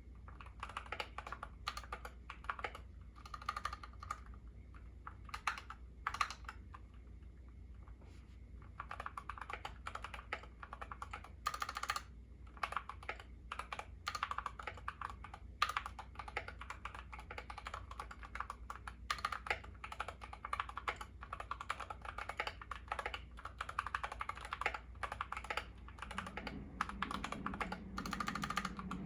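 Typing on a YUNZII KC68 mechanical keyboard with lubed Gateron Yellow linear switches and XDA keycaps: quick, irregular runs of keystrokes, sparser for a few seconds near the start before settling into steady fast typing.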